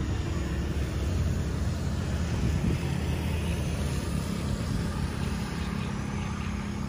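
Low, steady rumble of street traffic, with cars and motorbikes running on the road beside the path.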